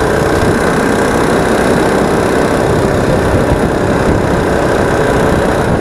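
Mini ATV's Predator 212 single-cylinder four-stroke engine running steadily while riding, at an even pitch and level.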